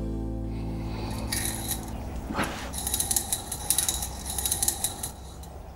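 Metal parts of a Yamaha outboard's crankshaft assembly clinking and jingling, with a light metallic ring, as the crankshaft is lifted out of the crankcase. The clinks run from about a second and a half in to near the end, with loose fragments of a bearing that has broken apart rattling against the metal.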